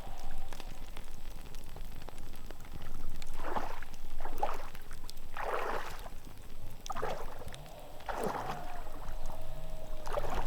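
Water sloshing and splashing in a series of separate strokes, about one every second or so, over a steady hiss.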